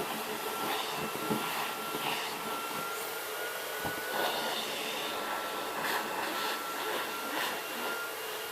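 Vacuum cleaner running on a Maine coon cat's fur. A steady hiss with a thin high whine that rises slightly in pitch in the middle, and short changes in the hiss as the nozzle moves.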